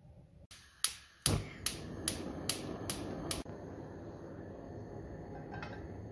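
Gas hob burner being lit: the electric igniter clicks about seven times in a steady rhythm, and the flame catches and keeps burning with a steady soft rushing hiss. There is a light knock near the end as a frying pan is set on the grate.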